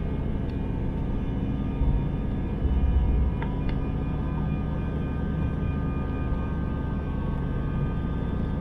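Airbus A319 taxiing, heard from inside the cabin: steady low rumble of the jet engines and rolling gear, with a few faint steady whining tones on top. A couple of brief low bumps come about two and three seconds in.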